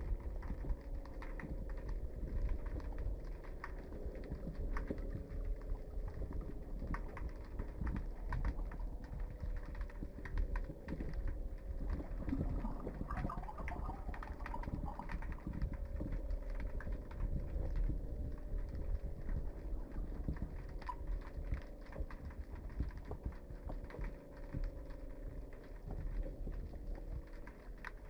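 Underwater recording on the sea floor: a steady low rumble with many irregular clicks and knocks.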